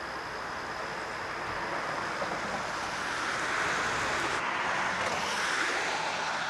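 Steady rushing of river water, growing a little louder midway.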